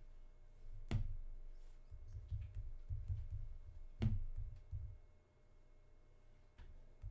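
Two sharp clicks, about three seconds apart, among irregular low bumps and knocks of handling at a desk.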